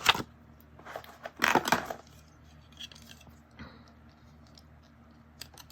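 Small hard craft items, stamps and ink pads, being handled on a table, with a few sharp clicks and a louder clatter about a second and a half in.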